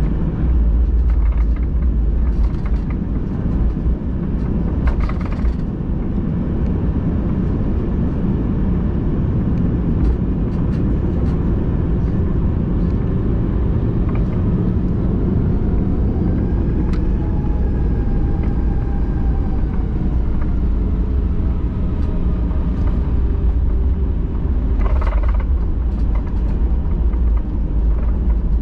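Cabin noise inside a Boeing 737-800 airliner: a steady, loud low rumble from the engines and airframe, with a few light clicks. Faint tones rise and then fall for a few seconds around the middle.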